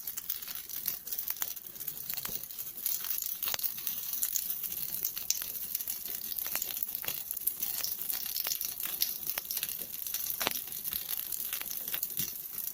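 Campfire burning: a steady hiss of flames with irregular sharp crackles and pops.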